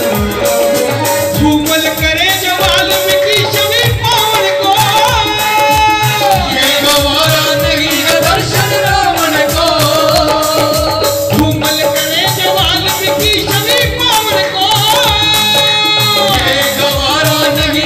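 Live group singing by male vocalists into microphones, over steady hand-drum percussion. The voices come in about a second and a half in and carry on over the beat.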